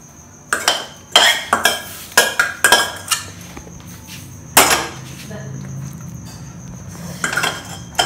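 Steel spoon scraping and knocking against a stainless-steel bowl while cooked fenugreek-leaf curry is spooned out onto flour. There is a quick run of clinks and scrapes over the first three seconds, one louder clank about halfway through, and a few more clinks near the end.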